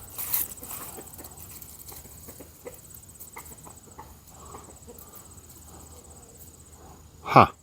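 One short, loud, pitched call near the end, over faint outdoor background with a steady high whine.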